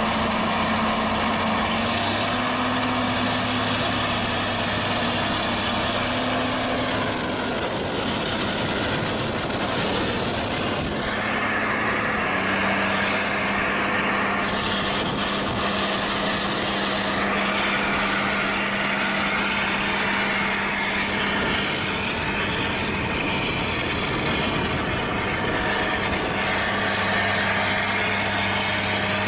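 Diesel engine of a large four-wheel-drive John Deere tractor running steadily under load, a constant engine hum with a thin high whine above it. The pitch shifts slightly about twelve seconds in and again near the end.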